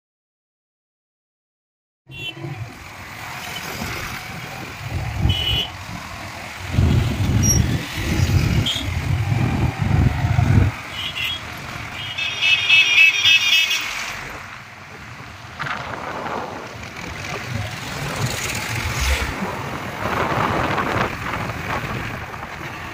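Street traffic heard from a moving vehicle: engine and road noise with vehicles passing, and a horn tooting briefly about halfway through. The first two seconds are silent.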